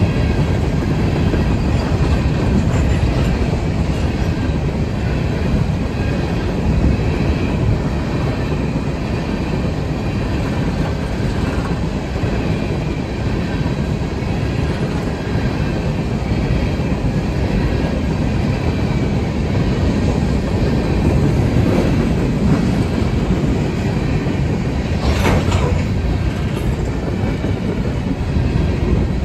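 Freight train rolling steadily past, a heavy low rumble with the clickety-clack of wheels over the rails, and one brief sharper metallic sound near the end.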